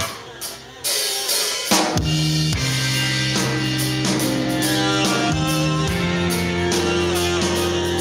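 Rock band music: after a brief drop near the start, drum hits bring the band back in, with bass, guitar and drum kit playing on.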